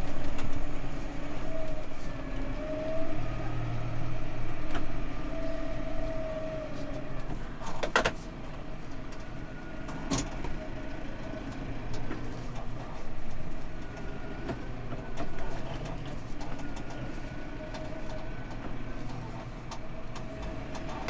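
Tractor engine heard from inside the cab, its revs rising and falling as the tractor manoeuvres, with a couple of sharp knocks partway through.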